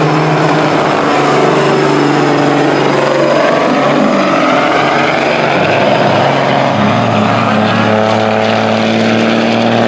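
Diesel engines of two loaded semi trucks running at full throttle in a side-by-side uphill drag race, pouring out black smoke. The heavy engine note holds steady and loud, its pitch changing in steps several times.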